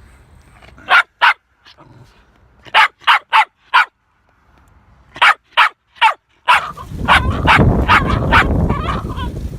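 A dog barking repeatedly in short, sharp barks, in groups of two to four. About two-thirds of the way in, a loud rushing noise takes over.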